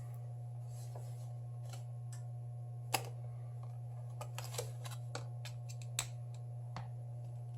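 Scattered sharp clicks and small ticks of a thin pry tool working at the strongly glued display of a Samsung Galaxy S7 Edge, the two strongest about 3 and 6 seconds in, over a steady low electrical hum.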